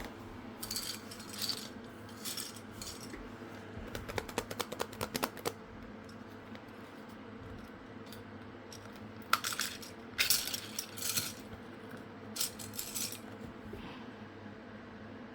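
Hands handling packaging and small hard plastic pieces: scattered clinks and rustles, with a quick run of sharp clicks about four seconds in.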